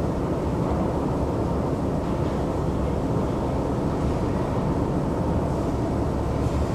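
Escalator running, heard from its moving steps: a steady, deep rumble of the drive and step chain with no change in pace.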